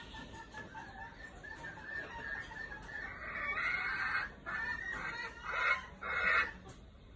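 Red junglefowl roosters calling: a run of quick, soft clucks, then several louder calls from about three seconds in.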